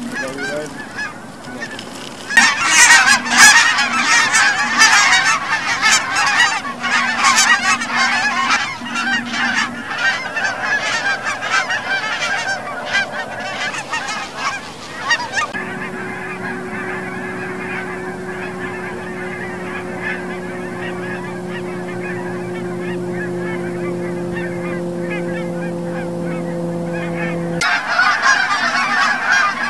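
Geese honking, many overlapping honks from a flock or from goose calls. About halfway through, a steady low hum with several fixed tones comes in under more muffled honking. Near the end the hum cuts off suddenly and the louder honking returns.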